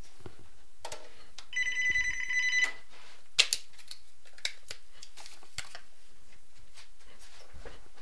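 A pitched electronic ring lasting about a second, pulsing slightly in loudness, over a steady hiss. Shortly after it comes a sharp click, the loudest sound here, and fainter clicks follow.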